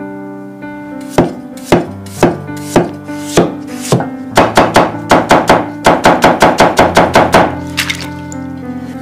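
Chinese cleaver slicing a potato on a thick wooden cutting board: about six separate chops half a second apart, then a fast run of chops, about five a second, for some three seconds. Background music plays throughout.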